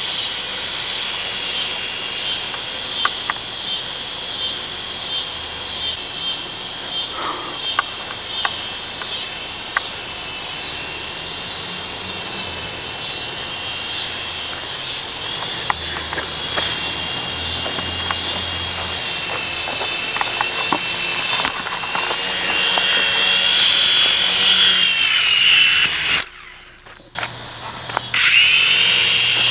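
Mini Chinook RC helicopter's small electric motors and twin rotors running with a steady high whine and a fast pulsing flutter. The whine rises in pitch and gets louder about three-quarters of the way through, cuts out for a second or two near the end, then comes back.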